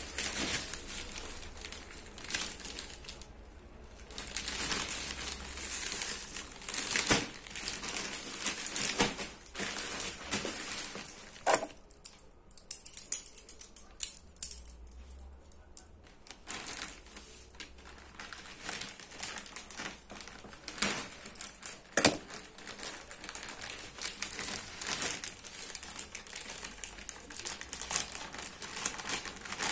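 Clear plastic wrap around a square delivery backpack crinkling and rustling as the bag is handled and turned over, with a few sharp knocks.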